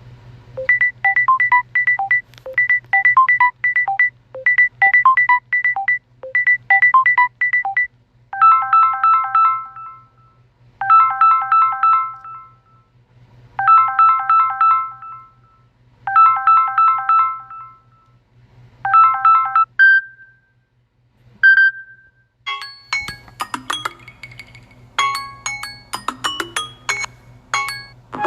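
Samsung Galaxy S21 ringtones playing one after another, each a short electronic melody repeated over and over. The tone changes about 8 s in to a slower, chiming phrase. Near 20 s there are two single short tones, and from about 23 s a busier tone begins.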